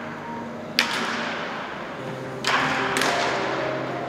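Baseball bat striking a ball twice, about a second and a half apart, each crack trailing off in the echo of a large indoor hall.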